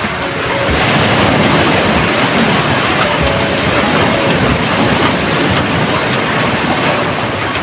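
Waves breaking on a beach: a loud, steady rushing noise that swells about a second in.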